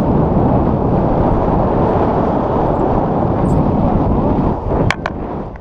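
Wind rushing over the camera's microphone in flight under a tandem paraglider, a loud, steady rush that eases a little near the end. Two quick clicks come just before it stops.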